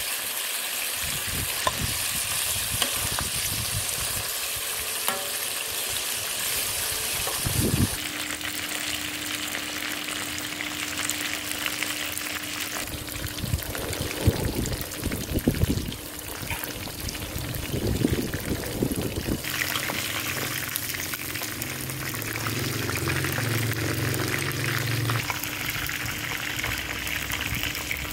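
Chicken pieces deep-frying in hot oil in a wok, a steady sizzle, with the scrape and clink of a metal spatula against the wok now and then.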